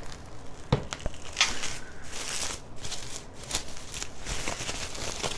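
Packaging crackling and rustling, with a few light knocks, as a yarn swift is unpacked and handled.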